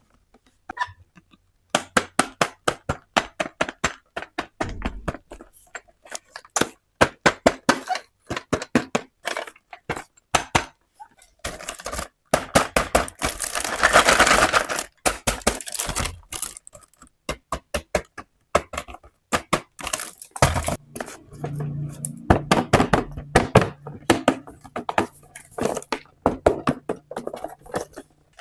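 Small toy pieces clicking, tapping and clinking as they are handled, in quick irregular runs, with a few seconds of rustling in the middle.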